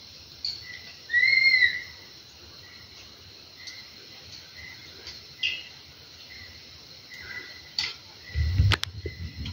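Forest calls: a short chirp repeats at the same pitch every second or so, and one loud call rises and falls about a second in. A few low thumps and a sharp click come near the end.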